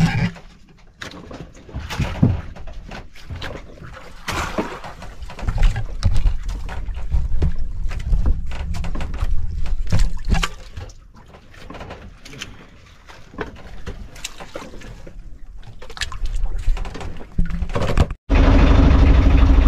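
Irregular clicks, knocks and rustling of a baited longline and its hooks being paid out of a crate over the side of an outrigger boat, over gusty wind and water noise. About a second and a half before the end it cuts abruptly to a boat engine running steadily.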